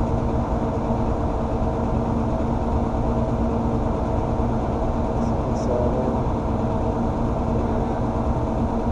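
Gas furnace running with its burners firing: a steady rush of air and flame with an even motor hum on top. Two faint short ticks come about five and a half seconds in.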